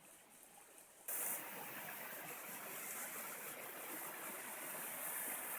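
Stream water flowing and rushing steadily, cutting in suddenly about a second in after a quiet start.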